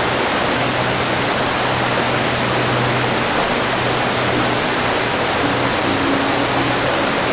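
Loud, steady rush of water, a waterfall or rapids, with a faint low held tone underneath.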